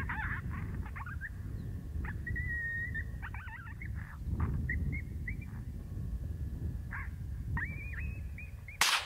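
Coyote yips and short wavering howls, high and quavering, over a low rumble of wind on the microphone. A single rifle shot cracks near the end.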